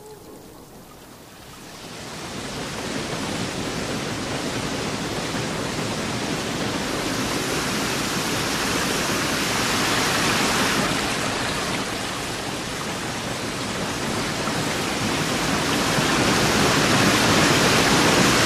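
Whitewater rapids rushing over rocks: a steady wash of water noise that swells in about two seconds in and grows louder toward the end.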